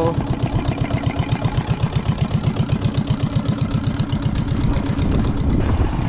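Small outboard engine of a motorized river banca running close by with a fast, even chugging beat, turning steadier near the end.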